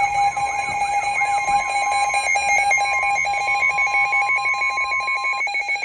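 Emergency Alert System attention signal: several steady electronic alarm tones sounding together. One of the higher tones cuts off about five and a half seconds in, just before the voice warning begins.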